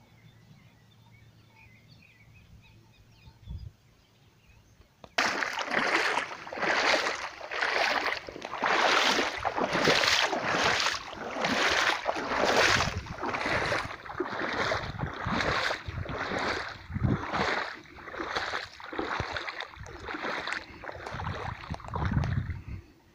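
Footsteps wading through shallow, muddy floodwater, each step sloshing and splashing in a steady rhythm of about two a second. The wading starts about five seconds in.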